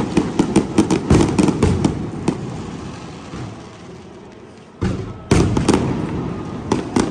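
Fireworks going off: a rapid run of sharp cracks and bangs for the first two seconds or so, a short lull, then another volley of bangs starting about five seconds in.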